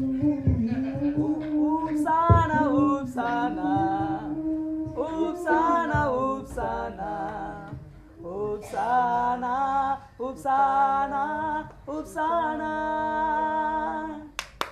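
Unaccompanied singing: a voice sings a wavering melody in held notes with short breaks. A low hum runs underneath for the first few seconds, and a few sharp clicks cut through.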